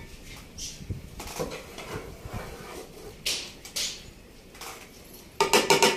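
Boiled rice being scooped with a plate and tipped into a metal cooking pot: soft scrapes and rustles, then a loud clatter of metal cookware ringing about five seconds in.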